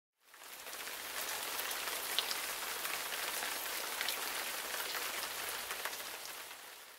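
Steady rain falling: an even hiss with scattered drop ticks, fading in just after the start and fading out near the end.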